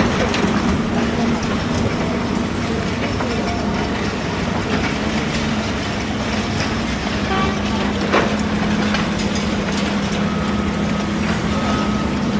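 Heavy excavator diesel engine running steadily, with scattered metal clanks and knocks. Near the end a reversing alarm begins beeping at an even rhythm.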